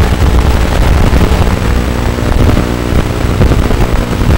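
Micro quadcopter's small brushless motors and propellers in flight, heard through the onboard FPV microphone as a loud, rough, crackling whir with heavy rumble. A faint steady motor pitch comes through around the middle.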